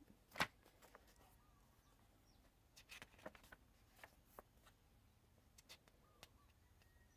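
Faint paper handling: a page of a large printed zine turned by hand, with soft rustles and light ticks of fingers on paper and one sharper tap about half a second in.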